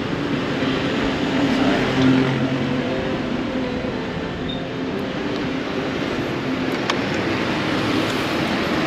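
Motorbike engine running at a low, steady pace while riding, with road noise.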